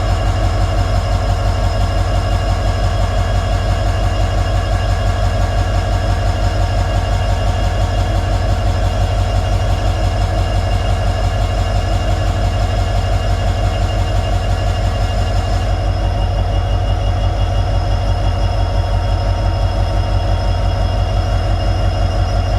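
EMD 16-710 two-stroke V16 diesel engine of a WDP4 locomotive running steadily with a deep, even hum.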